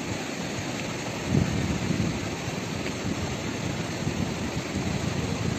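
Fast-flowing river rushing steadily, with wind rumbling on the microphone in irregular gusts.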